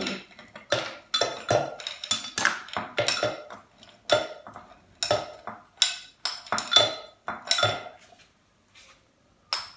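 A metal spoon clinking and scraping against a ceramic bowl as ice cubes are spooned from it into a blender jar: a rapid, irregular series of sharp clinks and knocks that stops about eight seconds in, with a couple more near the end.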